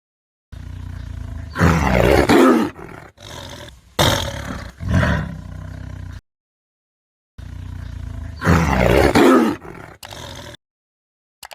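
A big cat roaring about four times: a long roar that falls in pitch, two shorter ones, then another long one. The calls come in short clips cut together, with stretches of dead silence between them.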